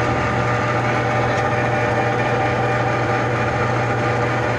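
Enco 405G×1000 (Chien Yeh CY405) metal lathe running steadily under power, a constant hum with several steady tones from its motor and gear train, with a faint click about a second and a half in. Its gears have just been cleaned but not yet lubricated, which the owner says gives a little excessive gear noise.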